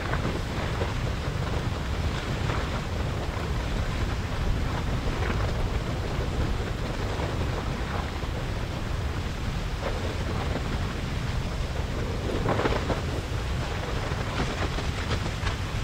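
Lava flowing down an open channel: a steady low rumble with crackling and short hissing surges, the loudest about three-quarters of the way through.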